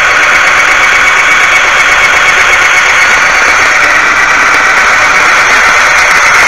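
Handheld electric power tool running steadily at full speed on the shelf's aluminum rivets, a loud constant whine and hiss.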